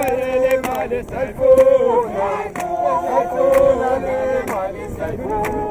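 A group of protesters singing a protest song together, men's and women's voices holding and bending notes over one another while they march, with scattered sharp hits through it.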